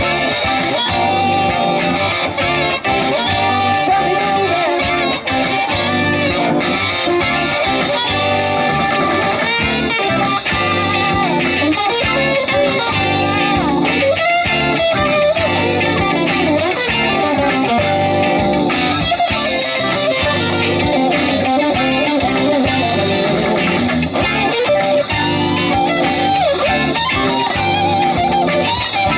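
Live blues band playing an instrumental passage, electric guitar to the fore with bent, wavering notes over bass and drums.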